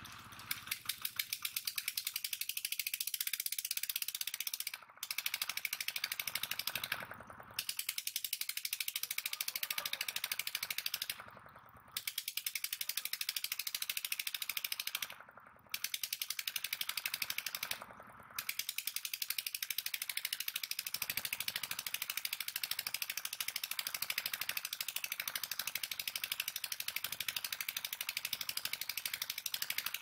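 Insect trill outdoors, a rapid, even ratcheting of high-pitched clicks that breaks off briefly five times in the first half and then runs on unbroken.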